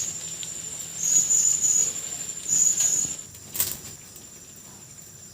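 Crickets chirping: high-pitched trills that come in bursts over a steady background chirr, with one sharp click a little after the middle.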